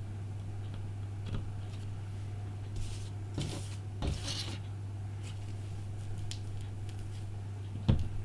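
Small handling noises from repair work on a phone: scattered light clicks and a few short scrapes of small tools and parts, with a sharper click near the end, over a steady low hum.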